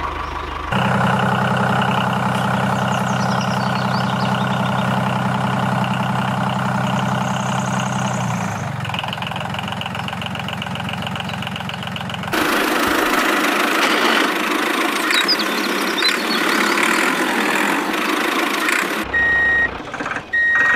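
Tractor engine running steadily, then giving way about twelve seconds in to a rougher, hissier engine sound. Two short reversing beeps come near the end.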